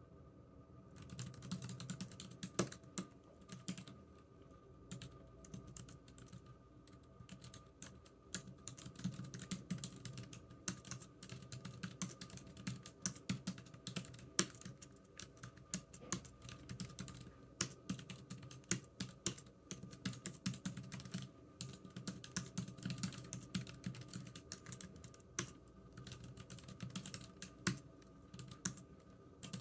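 Computer keyboard typing: fast, irregular key clicks in bursts with brief pauses, starting about a second in.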